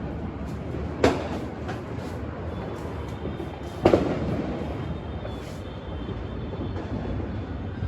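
New Year fireworks and firecrackers going off all around: a continuous rumble of distant blasts, with two sharp loud bangs, one about a second in and one just under four seconds in.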